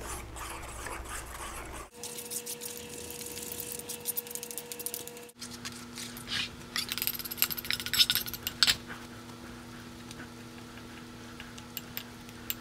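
A metal spoon stirring cheese sauce in a small stainless-steel bowl, scraping and clinking against the metal in short spells, over a faint steady hum. The sound breaks off abruptly twice.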